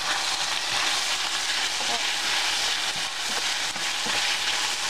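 Pork tenderloin strips and sliced red onion sizzling in hot oil in a stainless steel frying pan, a steady even hiss.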